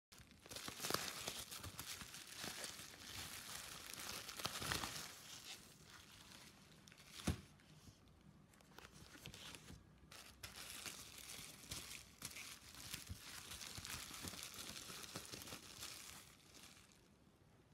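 Box and packaging being handled and opened: continuous rustling and crinkling with many small clicks, and one sharp click about seven seconds in. The rustling dies down near the end.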